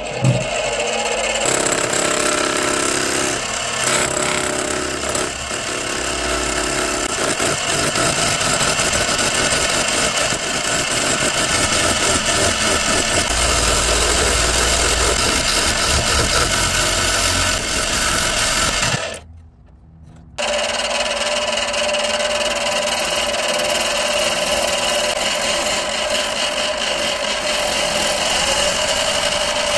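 Small metal lathe running and turning a wooden ring blank, the cutting tool scraping and shaving the wood in a steady whirring, rasping noise with the motor's hum under it. The sound drops away for about a second and a half about two-thirds through, then carries on as before.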